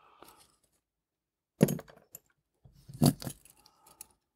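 Two short bursts of clicks and knocks from small hand tools being handled at a watchmaker's bench, about a second and a half in and again near three seconds, the second one longer.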